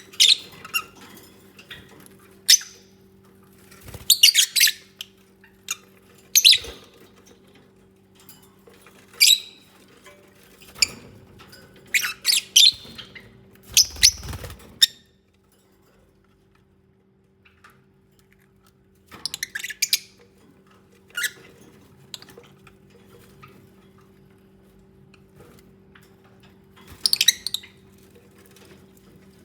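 Lovebirds giving short, sharp, high squeaky chirps in scattered bursts, with a few seconds of quiet about halfway through. A faint steady low hum runs underneath.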